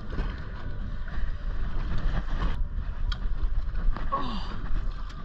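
Low rumbling wind and water noise on a small open boat, with a few faint knocks about three seconds in and a short falling tone about four seconds in.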